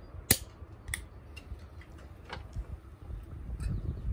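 A bottle of sparkling pét-nat wine being opened, with one sharp, loud click as the cap comes off about a third of a second in, then a few small clicks. Near the end comes a low rushing as the fizzy wine is poured into a glass.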